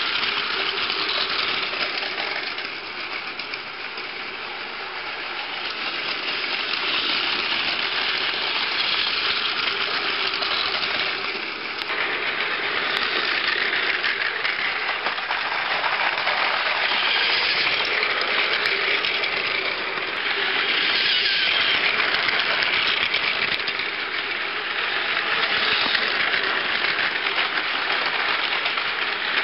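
Plarail battery toy trains, including a coupled six-car E4 series Max Shinkansen, running on blue plastic track: a steady whirring of small motors and gears with the rattle of wheels on the plastic rails. It swells and fades several times as the trains pass close and move away.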